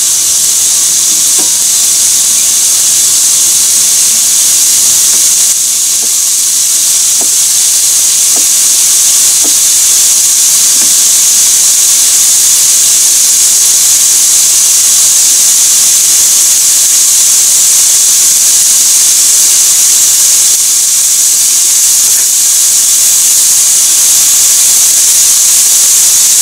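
Raw chicken pieces sizzling in a frying pan over high heat: a loud, steady, high sizzle with a few faint pops in the first several seconds.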